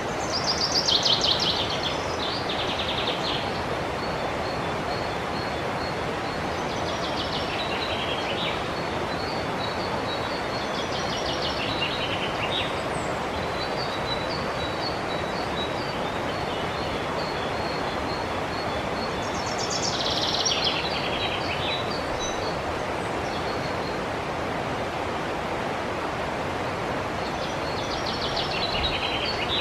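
A river rushing steadily, with songbirds singing over it: short trilled phrases that fall in pitch, about five times, and between them a run of quick, high, evenly spaced chirps.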